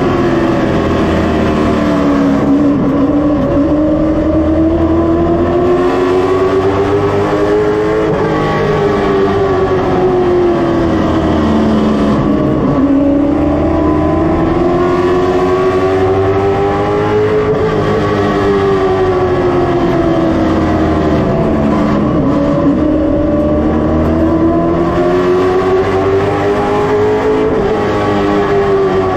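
Stock car's V8 engine at racing speed, heard from a camera on board the car. Its pitch climbs for several seconds on each straightaway and drops off into the turns, three times over.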